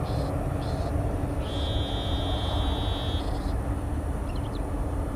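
Boeing 737 jet airliner's engines rumbling steadily as it climbs away after takeoff, with a steady low hum. Short high chirps repeat through it, and a longer high buzz sounds for about two seconds in the middle.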